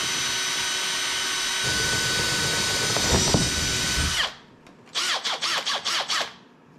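Cordless drill with a 3/16-inch bit boring through a boat's fiberglass deck, its motor running with a steady high whine for about four seconds, with some low chatter near the end where the bit meets a metal plate under the fiberglass. After a short pause comes a quick run of short trigger bursts, the motor spinning up and down.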